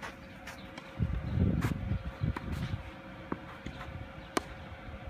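Tennis ball being struck with racquets on an outdoor court: several short, sharp pocks a second or so apart. About a second in, a low rumble hits the microphone, and a faint steady hum runs underneath.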